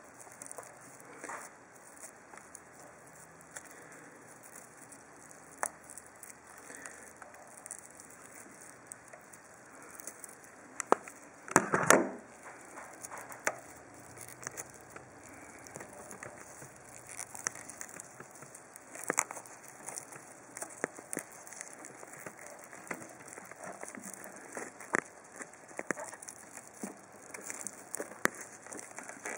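Hands handling a cut-open HDMI cable, peeling back its outer sheathing and insulation: scattered small clicks, crackles and crinkling, with one louder tearing rustle about twelve seconds in.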